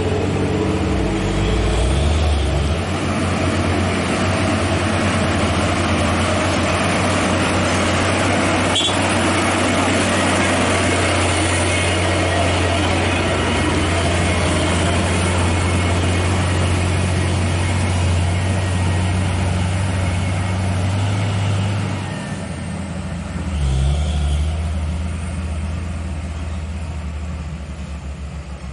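Heavy truck's diesel engine running under load with a steady low drone. It drops away about three quarters of the way through, swells briefly once more, then fades. One sharp knock about a third of the way in.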